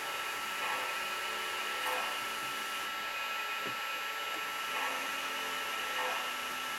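Lionel O gauge passenger train running on three-rail track: a steady whir of its electric motor and wheels.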